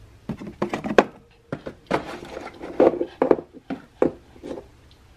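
Small plastic nail-product jars knocking and clicking against each other and into cardboard shelf bins as they are set down by hand, a string of irregular knocks.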